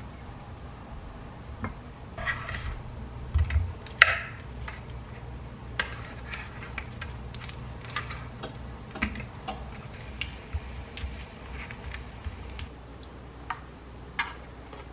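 Dishes and utensils clinking and tapping irregularly, with a few louder clinks a few seconds in, over a steady low hum.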